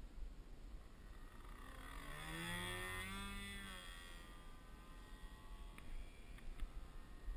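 Petrol engine of a radio-controlled model plane (Evolution GX10 10cc) flying past. Its engine note swells about two seconds in, bends in pitch as the plane passes, then fades.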